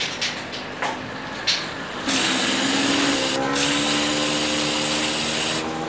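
Aerosol spray-paint can hissing in long sprays, starting about two seconds in, with a brief break in the middle and stopping near the end. A few light clicks come before the first spray.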